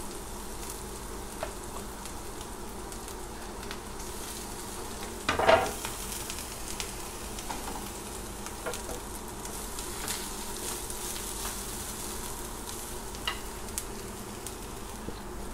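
Grated coconut sizzling gently in hot coconut oil in a pan, stirred and spread with a wooden spatula, with scattered light clicks and one brief louder sound about five and a half seconds in.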